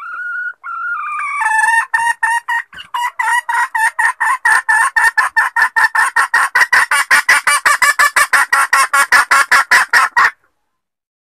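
Junglefowl hen calling: a few drawn-out notes, then a long run of quick clucks that speeds up to about seven a second and cuts off near the end. This is the hen call used as a hunting lure to draw in male junglefowl.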